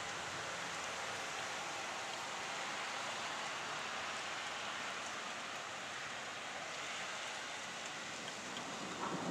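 Steady hiss of thunderstorm rain falling. A louder, deeper rush sets in near the end.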